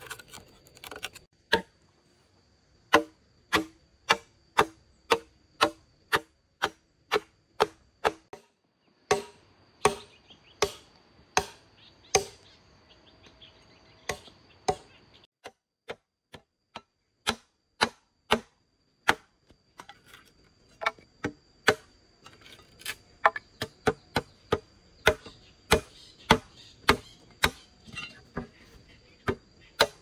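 Repeated sharp chopping blows on wood, about one to two a second with a few brief pauses.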